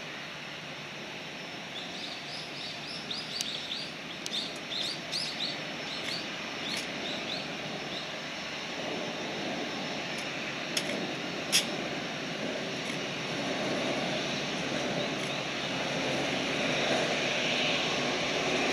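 Rolls-Royce Trent 7000 turbofans of an Airbus A330-900neo running at taxi power, a steady jet hum growing gradually louder as the airliner rolls closer. A bird calls in a quick series of short chirps a few seconds in, and two sharp clicks come near the middle.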